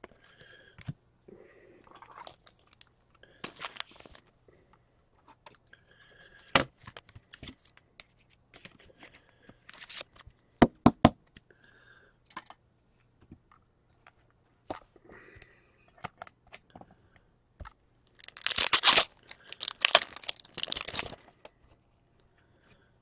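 Trading card packs and cards handled by hand: soft rustling and sliding with scattered sharp clicks. Near the end comes about three seconds of loud crinkling and tearing, typical of a foil pack wrapper being ripped open.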